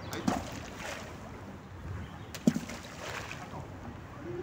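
Hand-thrown balls of groundbait landing in the canal one after another, several dull plops, the loudest about halfway through. The splash is meant to draw the fish in.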